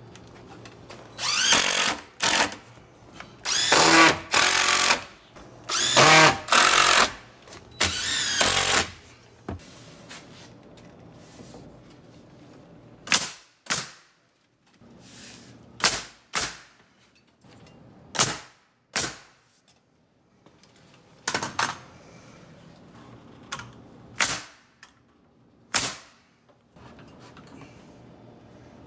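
A cordless drill whirs in a run of short bursts, driving screws into the wood framing. It is followed by about a dozen sharp single shots from a pneumatic framing nailer nailing studs together, spaced a second or two apart.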